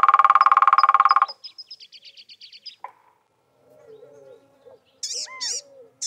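Ladder-backed woodpecker drumming: one rapid roll of strikes about a second and a half long, trailing off in fainter, slower taps. Near the end, a blue-gray gnatcatcher gives a few short, high, fussy calls.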